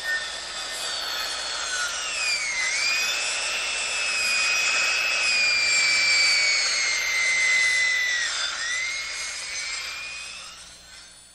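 Sawmill saw running with a high, steady whine. Its pitch dips sharply about two and a half seconds in and again near the end, as the blade bites into the wood, then it fades out.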